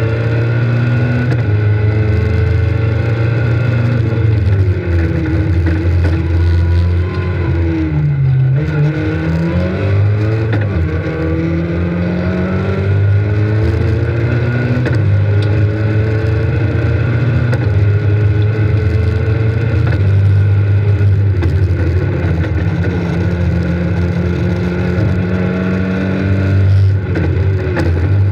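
Rally car engine heard from inside the cabin under hard acceleration. The pitch climbs and drops back again and again as it is shifted through the gears. About eight seconds in, the revs fall away and then build up again.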